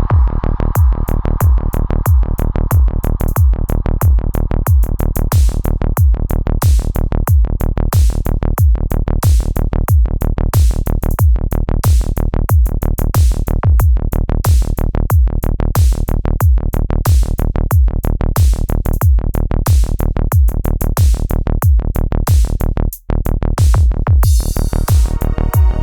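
Electronic music with a steady, heavy drum-machine beat. Near the end it drops out for an instant, then comes back with sustained synthesizer chords over the beat.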